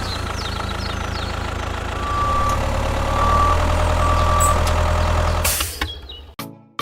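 A heavy vehicle's engine running steadily, with a reversing alarm beeping three times, about once a second, from about two seconds in; the sound stops shortly before the end.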